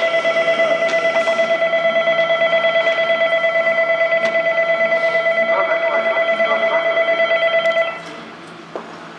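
Railway platform departure bell ringing continuously with a fast, even trill, then cutting off about eight seconds in: the signal that the diesel railcar is about to leave.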